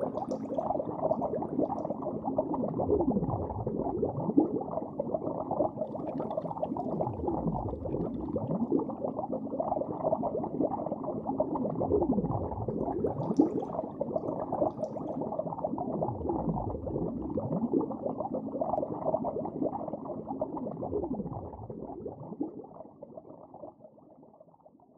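Muffled underwater sound with a gurgling, bubbling wash and slow swooping swells every few seconds, fading out near the end.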